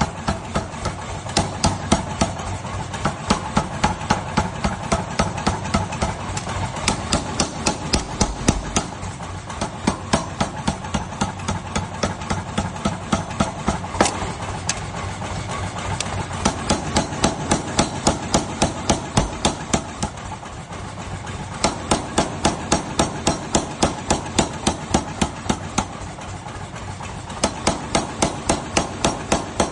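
Hammer striking a red-hot steel knife blade: fast, even blows about four a second, in runs broken by short pauses, over a steady low hum.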